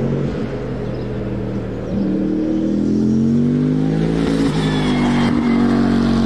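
The twin-turbo V8 of the Toyota/Lexus GR GT3 race car at full throttle, its engine note climbing steadily as the car accelerates along the circuit. It gets louder about two seconds in, with a couple of brief dips in the note near the end.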